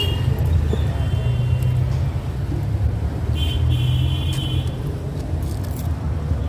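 Steady low rumble of road traffic and vehicle engines, with a brief high-pitched beeping tone about three and a half seconds in.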